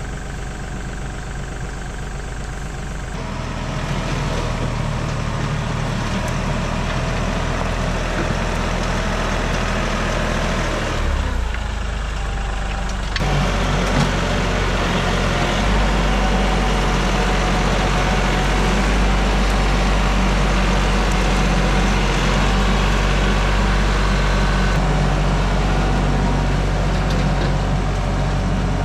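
Tractor engine running steadily. It grows louder about three seconds in, drops briefly around twelve seconds, then runs on loud and steady.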